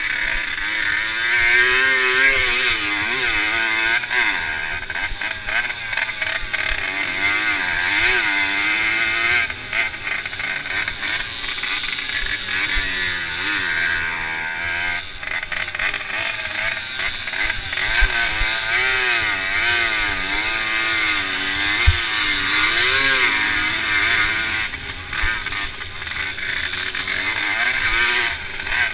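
Small two-stroke moped engine racing over rough grass, its pitch rising and falling again and again as the throttle is worked, over a constant rushing noise.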